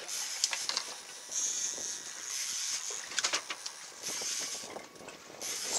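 Deck noise on an open fishing boat: wind and water hiss that comes and goes in patches, with scattered clicks and knocks from fishing rods and reels.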